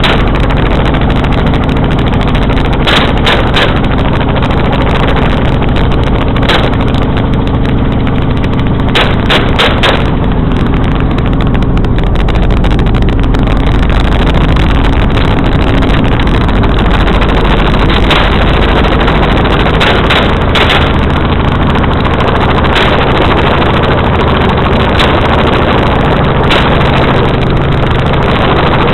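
Helicopter running loudly and steadily, heard from on board: a constant low hum with a strong rushing noise over it. Brief sharp cracks cut through it several times.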